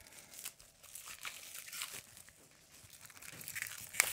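Plastic shrink wrap crinkling as it is picked at and peeled off a small case by hand, in irregular crackles, with one sharp click near the end.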